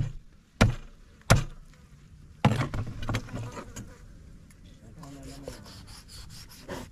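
Knife chopping into a catfish head on a wooden table: three sharp chops about two-thirds of a second apart, then rougher cutting and scraping through the flesh. Insect buzzing is heard in the latter half.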